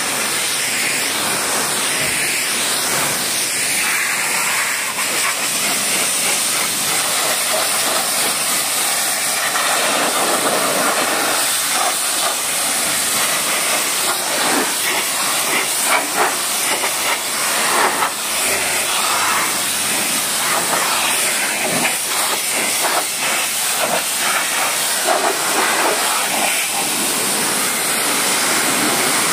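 Pressure-washer jet spraying water onto a car's roof, windows and side panels: a steady, loud hiss, rougher and more uneven through the middle.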